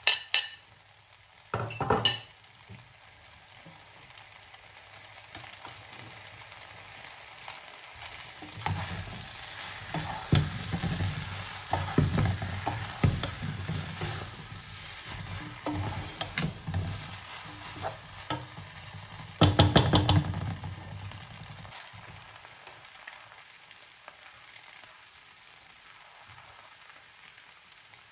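Rice noodles (bihon) and vegetables sizzling in a non-stick wok while they are stirred and tossed with a utensil, in bouts of scraping and clatter that are loudest about twenty seconds in. About two seconds in, a fork clinks against a plate as the vegetables are scraped into the pan.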